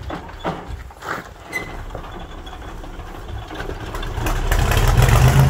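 The International Harvester tractor's transplanted V6 Cummins diesel catches while the tractor is being push-started downhill. About four seconds in it fires and runs, getting louder towards the end. It is being crash-started because a bad alternator possibly kept it from starting normally.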